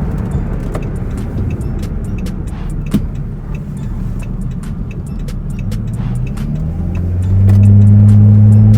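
Dodge Charger running, a steady low rumble of engine and road noise with scattered small clicks. About seven seconds in, a much louder deep steady hum joins it.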